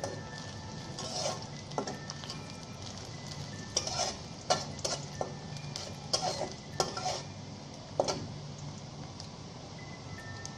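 Sliced onions frying in hot oil in a metal pot with a steady sizzle, being lightly fried before the spices go in. A spatula stirs them, scraping and clinking against the pot several times in the middle.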